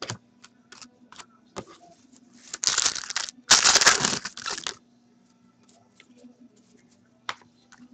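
Shiny foil wrapper of a trading card pack being torn open: two loud rips about three seconds in, each lasting about a second. Light clicks and taps of cards being handled come before and after.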